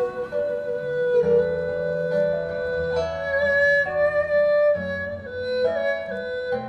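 Erhu playing a melody of long held notes over acoustic guitar accompaniment.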